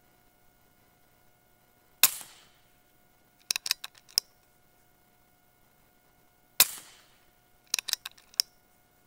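Two shots from a RAW HM1000X .30-calibre PCP air rifle, about four and a half seconds apart, each a single sharp report with a short tail. About a second and a half after each shot comes a quick run of four or five metallic clicks as the action is cycled to load the next pellet.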